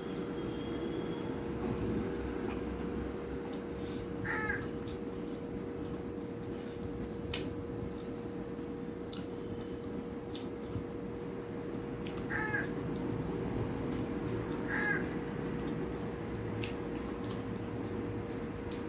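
A bird calls three times, short calls several seconds apart, over a steady low hum. Soft clicks of eating come and go.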